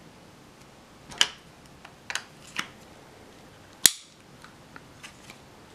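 Small plastic clicks and taps from a Kestrel 5500 weather meter's battery compartment as a lithium battery is put in and the battery door is closed, the loudest a sharp snap about four seconds in, followed by a few faint ticks.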